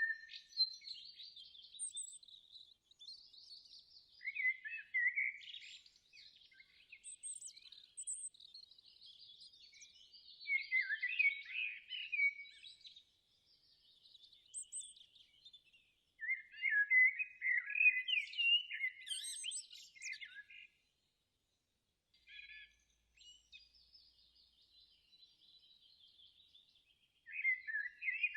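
Birds chirping and singing in short, high phrases every few seconds, with a brief full silence about two-thirds through.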